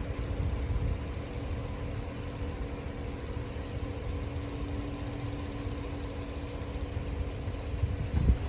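Diesel train running slowly away, a steady low rumble with an even engine hum as it trundles off.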